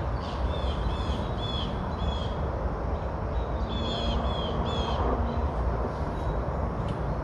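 A bird calling in runs of short, high repeated notes, about two a second, over a steady low background rumble.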